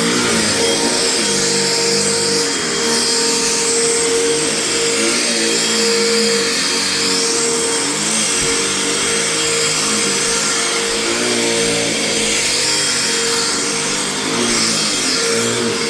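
Vacuum cleaner running steadily over carpet, its motor pitch rising and falling in waves as the head is worked back and forth.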